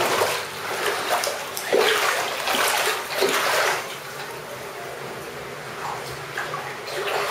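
Shallow floodwater on a tiled floor sloshing and splashing in uneven bursts over the first few seconds, then a quieter, steadier wash of water.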